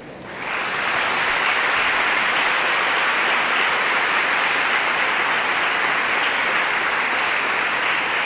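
Audience applauding; the clapping swells up in the first second and then holds steady.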